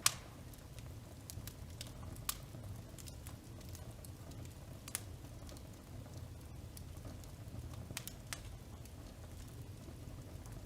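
Wood fire crackling in an open fireplace: scattered sharp pops a few seconds apart over a steady low rumble.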